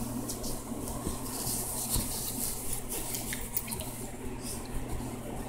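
Blanket fabric rustling with small scattered clicks as a small dog shifts and burrows under it on a bed, over a steady low hum.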